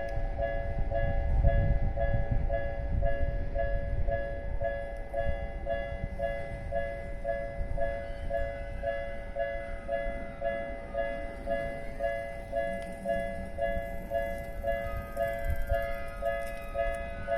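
Japanese level-crossing warning bell ringing in a steady repeating ding, about two strikes a second. A Namboku Line 9000-series train rumbles past in the first few seconds.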